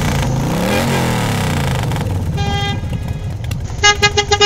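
End-card sound effect: a vehicle passing with its pitch sweeping up and down, then a car horn giving one short honk about two and a half seconds in and a quick run of five or six toots near the end.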